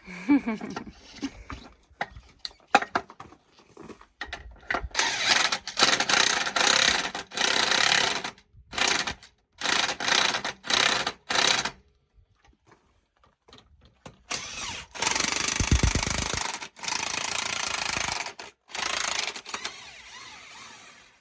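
Tractor tire bead breaker being driven in repeated short bursts of noisy mechanical sound, with brief pauses between them and a longer run of a few seconds after a quiet gap.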